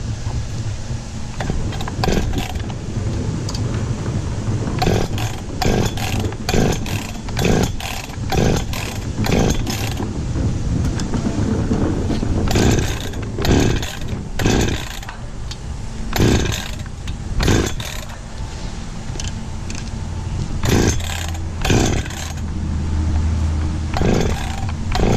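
Perla Barb 84cc two-stroke chainsaw idling, revved in many short bursts, often about a second apart, with pauses between groups of them.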